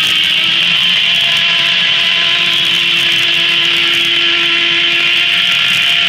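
Steam-driven circular sawmill blade ripping through a red elm log: a steady whine over the rasping hiss of the cut.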